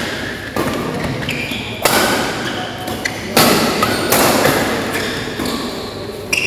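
Badminton rackets striking a shuttlecock during a doubles rally: several sharp hits a second or more apart, each ringing on in a reverberant hall.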